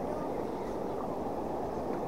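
Steady low rumbling noise of wind and water, with no distinct events.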